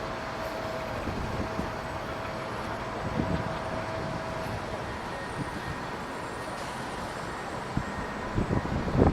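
Steady rumble of jet and airport noise, with a faint held whine during the first half. Wind buffets the microphone near the end.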